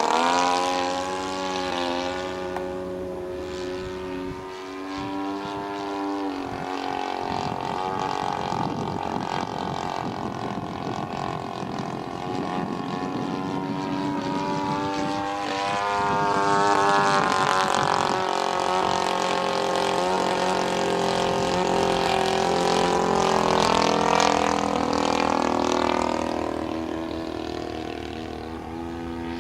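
Giant-scale radio-control airplane powered by a converted Husqvarna two-stroke chainsaw engine, flying with its propeller running. The engine's pitch glides down and back up again and again as the plane passes by and turns.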